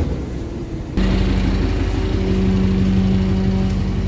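Scania R500's V8 diesel engine running steadily. About a second in the sound changes abruptly to a different steady engine note, as at a cut.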